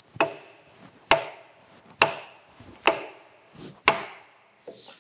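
Five evenly spaced blows of a lead hammer on the steel spindle quill of a lathe tailstock, a little under a second apart, each a sharp knock with a short metallic ring. The blows are meant to drive the stuck quill back into the tailstock.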